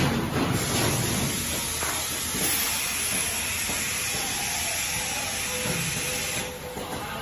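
Packaging machinery running with a steady hiss of air that drops away about six and a half seconds in.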